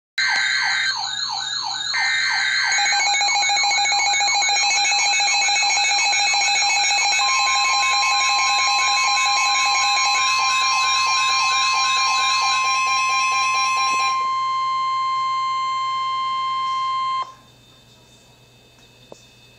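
Several NOAA weather alert radios sounding their alarms together for a severe thunderstorm warning: overlapping warbling and sweeping electronic tones, joined about seven seconds in by the steady single-pitch weather radio warning tone. Most of the alarms stop about two thirds of the way through, and the steady tone cuts off suddenly a few seconds later, leaving a low hum and a single click near the end.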